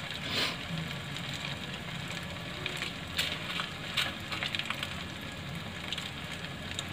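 Hot oil sizzling steadily around a Maggi-noodle-coated vegetable manchurian ball deep-frying in a kadhai, with scattered crackles and pops.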